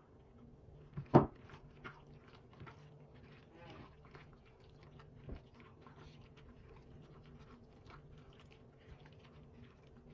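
A gloved hand mixing raw chicken pieces with a wet green herb sauce in a glass bowl, making a string of small squelches and clicks. There is one sharp knock about a second in and a smaller one about five seconds in.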